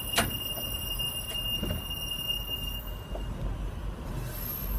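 Vintage trolley car rolling slowly over the rails with a low rumble and a steady high-pitched squeal that stops about three seconds in; a sharp click sounds just after the start.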